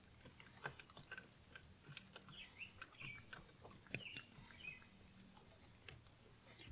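Near silence: faint scattered clicks and taps of hands spinning a spin-on diesel fuel filter onto its housing, with a few faint short chirps.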